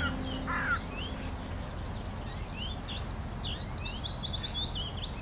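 Wild birds chirping over steady outdoor background noise, with one louder call less than a second in and a quick run of high chirps about three seconds in.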